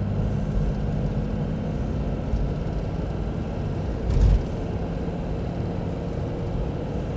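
Toyota Land Cruiser HJ61's 12H-T four-litre turbo diesel drones steadily while the truck drives, heard from inside the cab with tyre and road noise. A brief thump comes about four seconds in.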